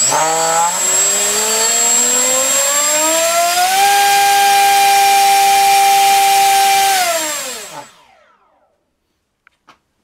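Turnigy 2826-6 2200kv brushless outrunner motor spinning an APC 6x4 electric propeller on a 4-cell pack: a whine that rises in pitch for about four seconds, holds steady at full throttle for about three, then winds down and stops about eight seconds in. The prop is one the tester expects to overpower the motor a bit.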